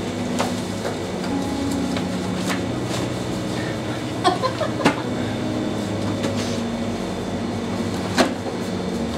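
Paper entry slips rustling and being handled at a table and put into a hollow ball-shaped container, with a few sharp clicks and knocks, the loudest about four and five seconds in and again near the end, over a steady low hum.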